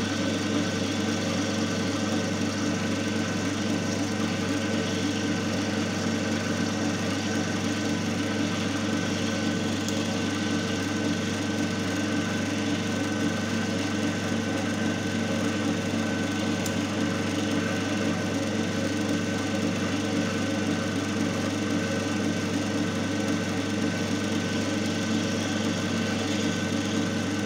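Single-phase capacitor-run induction motor running steadily at about 1,440 rpm under light load, driving a coupled loading machine. It gives a steady electrical hum with a strong low tone and fainter higher tones above it, with no change in speed or pitch.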